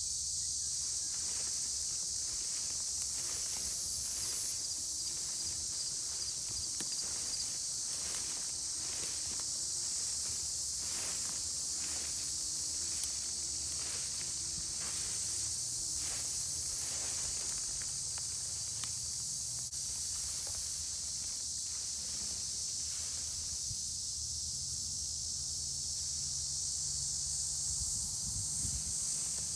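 A steady, high-pitched chorus of field insects such as crickets, with footsteps swishing through tall grass about once a second during the first half or so.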